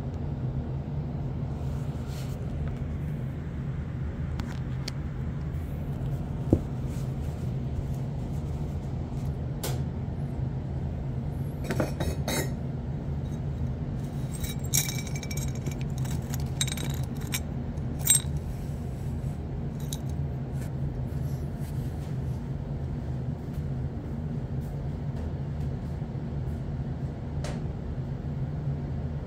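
Steady low machine hum, with a few light clicks and clinks scattered through the middle, the sharpest about six and eighteen seconds in.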